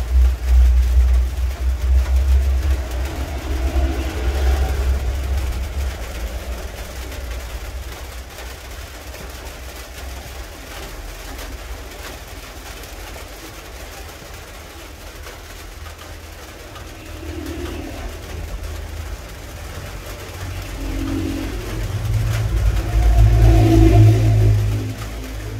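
A low engine rumble of a passing vehicle, loud at first and fading away within about six seconds. It swells again near the end as another vehicle passes, then drops off.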